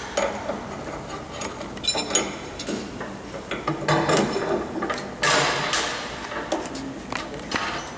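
Steel spacer collars and a cutter being handled and set onto a spindle moulder's shaft: a string of irregular metallic clinks and knocks, with a longer rubbing noise a little past five seconds in.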